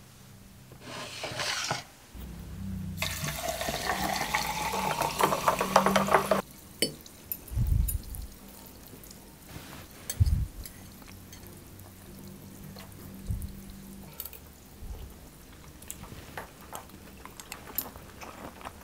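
Water poured into a glass, its pitch rising as the glass fills, followed by small clinks of a fork and spoon on a ceramic pasta plate.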